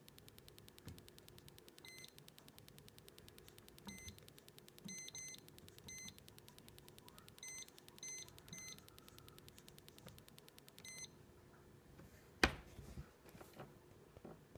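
Lowrance Mark-5x Pro fishfinder keypad beeping as its buttons are pressed to step through the menus: about ten short electronic beeps, some in quick pairs, with a faint fast electronic ticking behind them that stops near the end. A single sharp knock near the end is the loudest sound.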